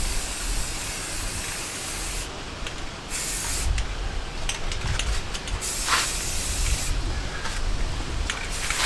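Aerosol spray-paint can hissing in several bursts of a second or two with short gaps, misting a light first coat onto a rifle. Wind rumbles on the microphone underneath.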